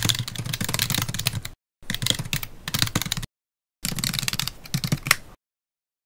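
Rapid computer keyboard typing clicks in three runs of about a second and a half each, with short pauses between, used as a typing sound effect for text appearing letter by letter.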